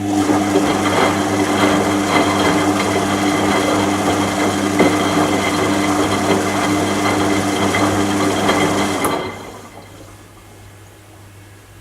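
Washing machine motor running with a steady hum, stopping abruptly about nine seconds in and leaving a faint low hum.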